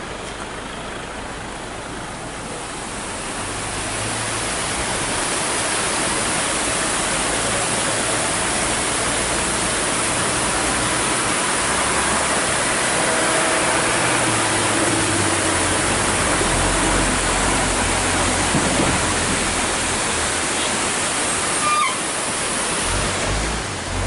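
Waterfall rushing down a rocky gorge: a steady, dense wash of water noise that swells over the first few seconds, then holds.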